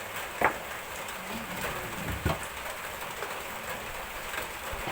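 Steady rain falling, with two sharp knocks, one about half a second in and a second one a little after two seconds.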